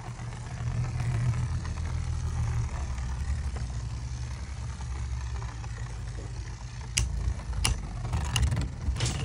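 Two Beyblade Burst spinning tops whirring in a plastic stadium, a steady low hum, with a few sharp clacks as they strike each other from about seven seconds in.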